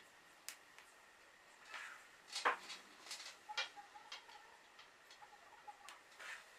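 Hand stitching through a quilt's fabric and batting layers: a needle and thread worked through the cloth with small scattered ticks and brief rustles of fabric. The loudest rustle comes about two and a half seconds in.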